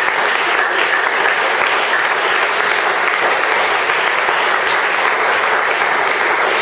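Congregation applauding, a dense, steady clapping.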